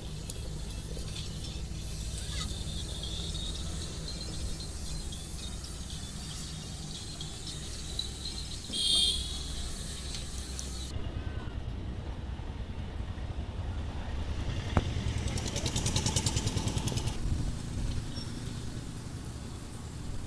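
Motor vehicle traffic running steadily, with a short high-pitched horn toot about nine seconds in and a louder, rapidly pulsing engine passing a few seconds before the end.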